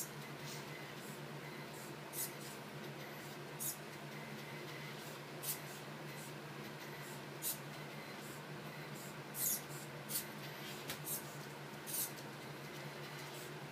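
Small electric motors of a homemade robot car with a servo-swept ultrasonic ping sensor: short, high whirring bursts every one to two seconds over a steady low hum as it drives and turns on carpet.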